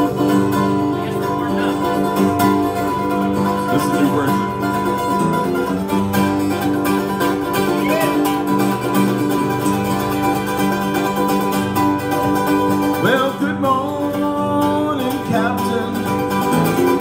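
Live acoustic guitar and a second plucked string instrument playing a country-bluegrass instrumental intro at a steady strum.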